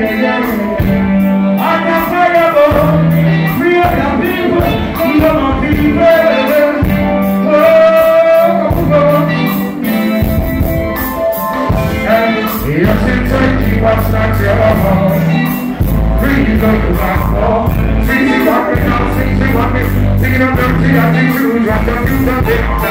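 Live reggae band playing an intro: electric guitar over a bass line and drums, loud.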